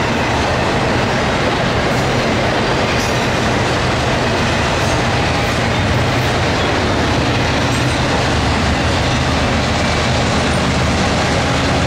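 A double-stack intermodal freight train rolling past close by: a steady, loud rush and clatter of steel wheels on rail. Underneath, a low diesel locomotive drone from the oncoming four-unit lash-up on the other track grows stronger in the second half.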